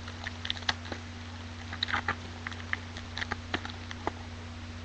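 Trading cards and foil pack wrappers being handled: scattered light clicks and rustles as the cards are flicked through, over a steady low hum.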